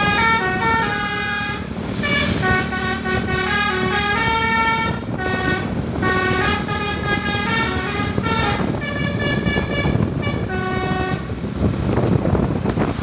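Indonesian 'telolet' Basuri multi-tone bus horn playing a tune of short stepped notes over a low rumble. The tune stops about 11 seconds in and only the rumble goes on.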